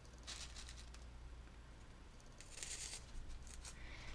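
Faint handling sounds of a paper doily and straight pins: two short soft crinkling rustles a couple of seconds apart, then a few light ticks.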